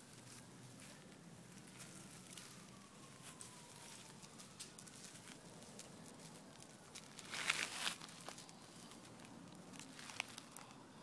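Savannah monitor pushing through dry leaf litter and twigs, a faint crackling rustle. A louder burst of rustling comes a little past halfway, and a few sharp clicks come near the end.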